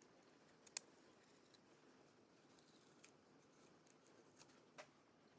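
Near silence broken by a few faint, short clicks, the clearest about a second in and another near the end: a plastic pry tool and fingers working the tape and battery connector on a laptop's mainboard.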